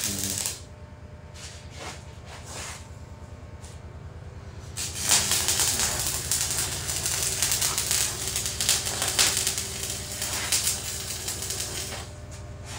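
Stick (arc) welding with a flux-coated rod: the arc crackles and sputters on and off for the first few seconds, then crackles and sizzles steadily from about five seconds in until near the end, over a low steady hum.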